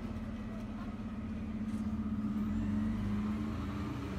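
An engine or motor running steadily with a low hum, growing a little louder two to three seconds in.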